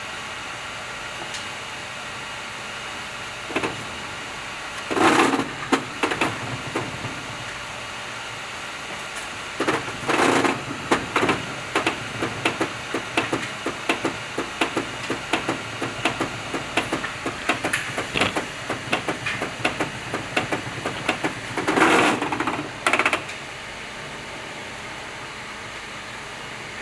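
Moving-head stage light running with a steady fan hum, broken by short bursts of mechanical movement about five, ten and twenty-two seconds in and a long run of rapid clicking in between.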